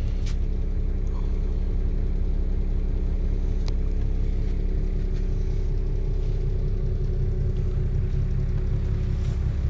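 Diesel engine of a Karosa 936 coach idling steadily, a low even hum heard from inside the passenger cabin.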